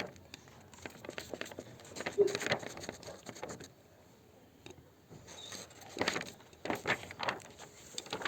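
Irregular pattering, rustling and clicking of classroom materials handled by hand to imitate nature sounds. It thins out to near quiet about four seconds in, then comes back louder in clusters about six to seven seconds in.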